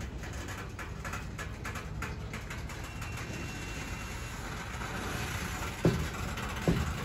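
Freight train of open-top gondola cars rolling slowly past: a steady rumble of steel wheels on the rails with light clicking, and two heavy thumps near the end.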